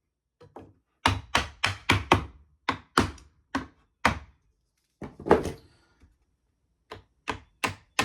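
Hammer striking a wooden tapping block to drive window trim nails back in: quick runs of sharp taps with short pauses, and one heavier knock about five seconds in.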